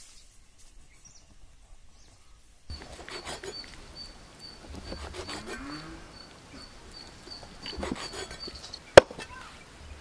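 Quiet open-air ambience with a steady high chirping, then a single sharp chop of a heavy knife into a wooden log chopping block near the end.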